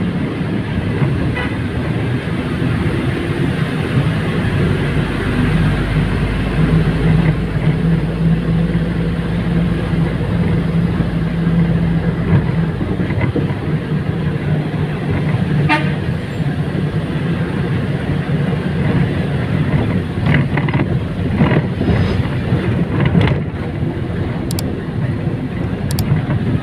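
Engine and road noise of a moving bus, heard from inside, with a steady low drone throughout. A brief horn-like toot comes about two thirds of the way through, and a few short rattles follow near the end.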